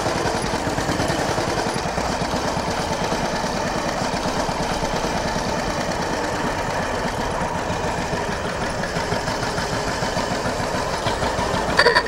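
Vintage motorcycle with sidecar, its engine running steadily with a fast, even chugging beat. A short, louder ringing tone cuts in at the very end.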